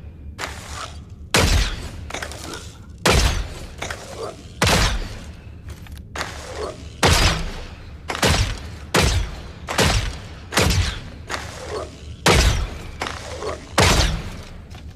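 Compound bow sound effect: a sharp shot sound repeated about every one and a half to two seconds, eight loud shots in all, with fainter knocks between them.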